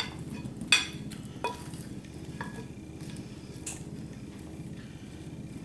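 A metal spoon scraping and clinking against a glass bowl as sliced apples are scooped out into a pie crust: one ringing clink just under a second in, a smaller one near a second and a half, then a few faint taps and the soft scrape of the slices sliding.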